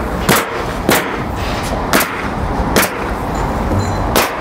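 Pneumatic coil roofing nailer firing five times at uneven intervals, each shot a sharp crack as a nail is driven into the roof deck.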